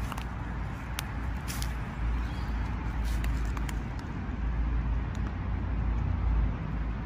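Steady low outdoor rumble with a few scattered sharp clicks and crackles of dry leaves and twigs on the woodland floor, the clearest about one and a half seconds in.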